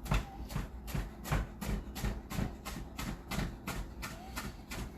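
Kitchen knife chopping on a cutting board in quick, even strokes, about four to five a second.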